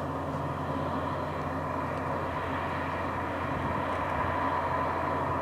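Heavy diesel machinery running steadily: a constant low engine drone with a steady whine on top.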